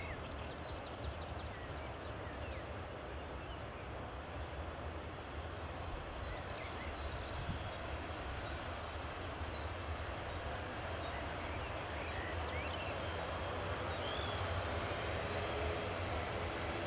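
Ryanair Boeing 737-800 jet rolling out along the runway after touchdown: a steady engine rush that grows slowly louder as the aircraft passes. Faint high chirps repeat about twice a second through the middle.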